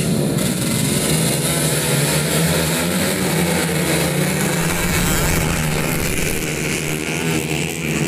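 Engines of modified underbone race motorcycles running with a steady drone.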